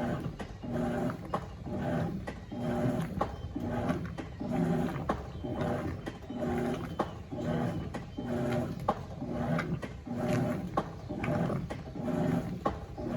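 Electrolux LF90 top-loading washing machine agitating during a pre-wash. The motor hum swells and fades about once a second as the agitator reverses direction, with a click at many of the reversals.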